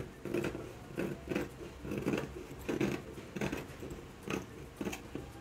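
Fabric scissors snipping through wax-print cotton fabric, a run of short cuts about one every half second to second.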